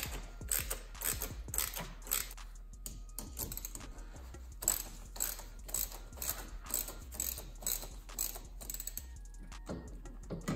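Hand ratchet with a 10 mm socket clicking in quick repeated strokes, about two to three clicks a second with a short break near the middle, as a hose clamp on the charge pipe is tightened.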